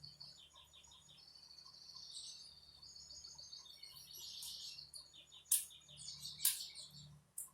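Birds chirping and trilling in the background, with two sharp clicks about five and a half and six and a half seconds in.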